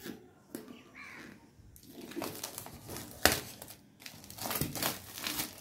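Crinkling and tearing as hands work at the plastic wrap and seal of a smartphone's retail box, in irregular rustles with one sharp click about three seconds in.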